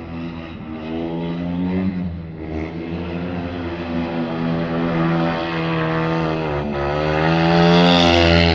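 Speedway bikes' single-cylinder 500 cc methanol engines running hard around the shale track. The pitch dips and climbs again several times as the throttle is rolled off and reopened through the bends, and it gets louder toward the end as a bike comes closer.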